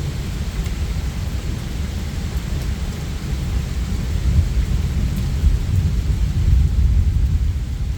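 Thunder rumbling continuously over steady rain; the rumble grows louder in the second half.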